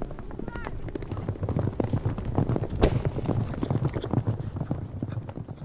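Hooves of several horses galloping over grassy ground: a rapid, uneven drumming of hoofbeats that builds through the middle, with one sharp crack about three seconds in.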